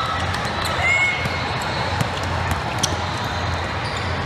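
Basketball being dribbled on a hardwood gym court, with players' sneakers squeaking (a short squeak about a second in) and voices of players and spectators in the background.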